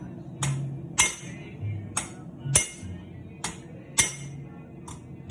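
Hammer blows on steel knife blades at the anvil, about eight sharp ringing strikes at an uneven pace of one every half second or so, over background music.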